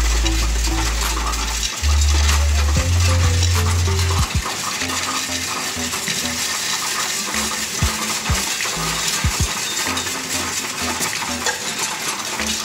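Euro coins clattering and clinking as they are pushed from a metal tray into a coin-counting machine, which takes them in with a dense, continuous rattle. A low drone runs under the first four seconds.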